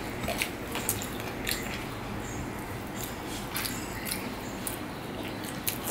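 Eating sounds of chicken biryani taken by hand: scattered small wet clicks and smacks of chewing, over a steady low hum.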